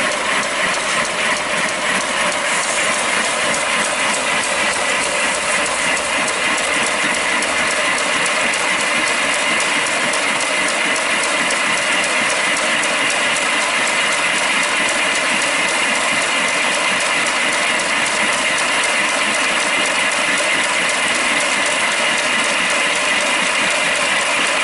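5-inch gauge live steam BR Standard Class 4 tank locomotive running fast on a rolling road: a rapid, even clatter of exhaust beats, valve gear and rollers. Over it is a steady hiss of steam from the cylinder drains, which are slow to close because oil in the cylinders makes them stick.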